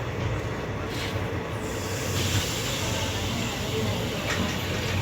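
Steady running rumble of a passenger train heard from on board an ICF coach. A rushing hiss rises in about two seconds in.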